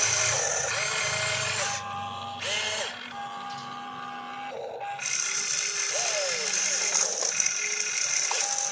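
Small electric motors of a radio-controlled excavator whining as the arm digs and the cab swings round, the pitch rising and falling with each move, with a steady tone through the middle and near the end and a steady high hiss.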